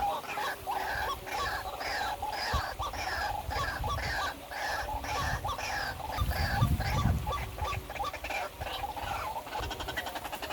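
A bird calling over and over in short, even notes, about two to three calls a second, with a low rumble about six seconds in.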